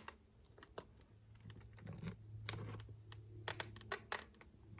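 Light scattered clicks and taps from handling a portable radio and its cardboard box, with a low steady hum coming in about a second in.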